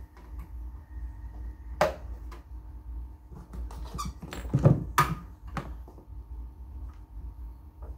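Audio cable plugs clicking and knocking against the rear panel of a rack equalizer as leads are handled and plugged in: a sharp click about two seconds in and a cluster of knocks and clicks around four to six seconds in, over a steady low hum.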